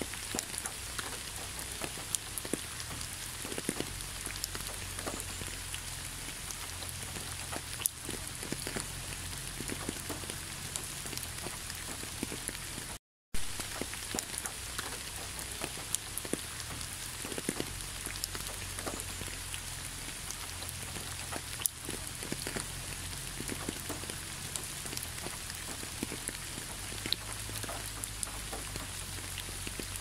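Rain falling steadily: a continuous hiss with many separate drops ticking sharply on the surface. The sound cuts out completely for a moment near the middle.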